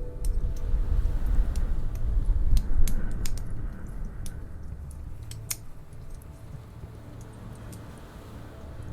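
Wood fire crackling in a fireplace: scattered sharp pops over a low rumble that is loudest in the first few seconds and then eases off.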